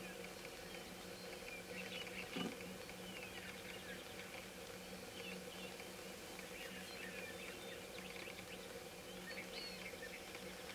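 Faint chorus of a sharp-tailed grouse lek: many short chirping and clucking calls from the courting birds, scattered throughout over a steady low hum. One sharp knock about two and a half seconds in.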